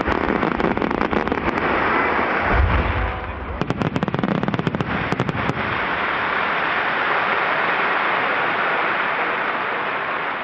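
Fireworks going off: deep booms, then a rapid run of sharp crackling pops about four seconds in. These give way to a steady wash of crowd applause and cheering.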